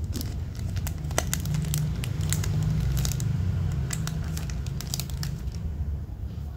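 Crinkling, rustling handling noise with many irregular sharp clicks, over a steady low rumble.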